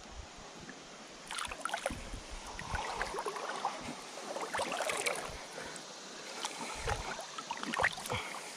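River water sloshing and splashing as a person wades through a shallow pool, in irregular splashes that start about a second in.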